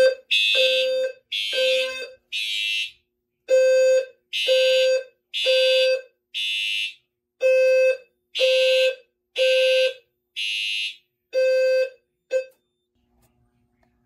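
Two fire alarm horns sounding the code 3 (temporal-three) pattern, out of step with each other: three short blasts, then a pause, repeating. One is a System Sensor HRLF low-frequency horn with a buzzy tone near 520 Hz; the other is a Siemens UMHU (Faraday 2834) horn, higher and harsher. Both cut off suddenly about twelve seconds in, as the walk-test activation of a smoke detector ends.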